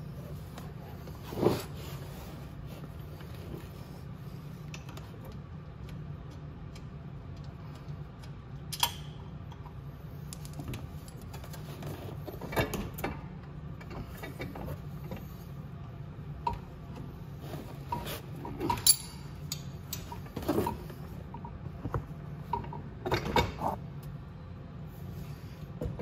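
Scattered metallic clinks and knocks as the motorcycle exhaust, its bolt and hand tools are handled while the bolt is threaded in by hand, a few of them ringing briefly. A steady low hum underneath.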